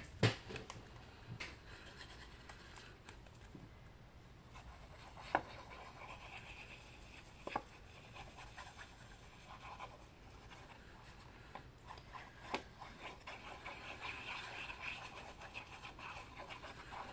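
Green-capped glue applicator rubbed across the back of a cardstock panel: faint scratching and rubbing, broken by a few light clicks and taps.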